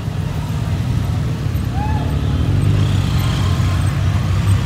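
Engines of motorcycles and Can-Am Spyder three-wheelers riding slowly past in a line. They make a low, steady rumble that grows louder near the end.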